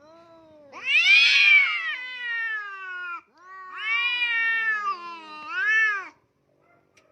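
Domestic cat yowling: two long, drawn-out meows that rise and fall in pitch, then a shorter one.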